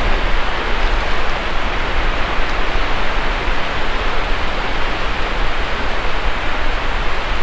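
Steady rush of breaking surf mixed with wind buffeting the microphone.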